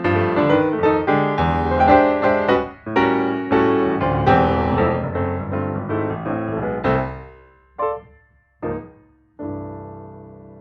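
Background piano music: a flowing run of notes that winds down, then two short separate chords and a final chord left ringing and fading near the end.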